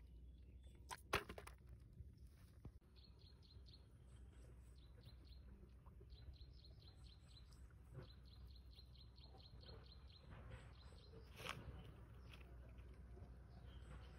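Faint outdoor background with a bird giving runs of short, high chirps, about four or five a second. A couple of sharp clicks come about a second in, and another near the end.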